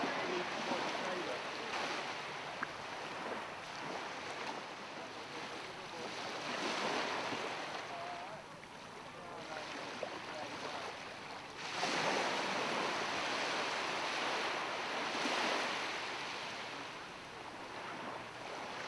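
Sea waves breaking and washing in, surging and easing every few seconds.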